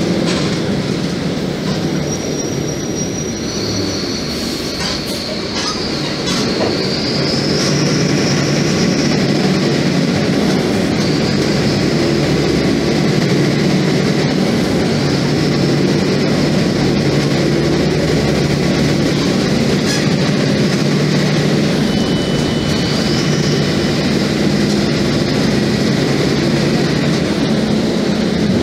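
Mercedes-Benz OF-1724 Bluetec 5 bus's diesel engine pulling steadily at road speed, heard from inside the bus: a constant low drone with road noise, and thin high whines that rise and fall for a few seconds now and then.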